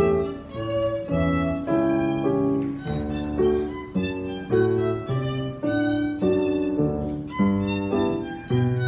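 Solo violin playing a gavotte: a steady run of short bowed notes.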